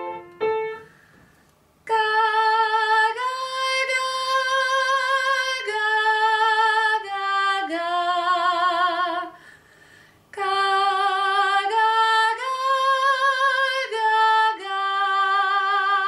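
A woman singing held, sustained notes with vibrato, without accompaniment, in two phrases of several notes each with a short break in the middle. Near the start come a couple of short piano notes.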